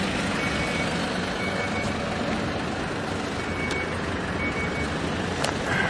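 An engine running steadily, with a faint high beep recurring at uneven intervals.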